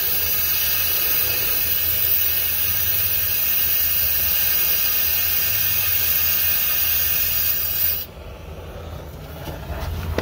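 Long-handled gas torch flame burning into a two-stroke motorized bike exhaust pipe to burn off carbon buildup: a loud, steady hissing rush. About eight seconds in it drops off suddenly, leaving a quieter flame with a low rumble.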